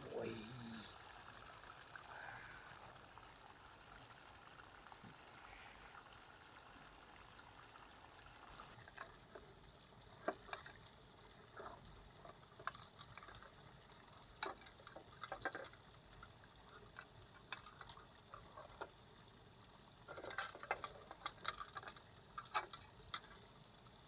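Faint handling noises over a soft steady hiss: from about nine seconds in, scattered sharp clicks and short rustles of fingers working a clear plastic compartment box among grass stems, clustering near the end.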